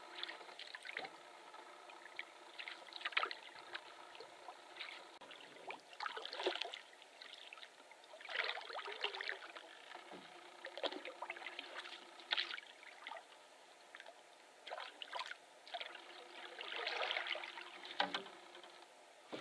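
Wooden canoe paddle dipping and pulling through calm lake water, with a swish and trickle of water every second or two.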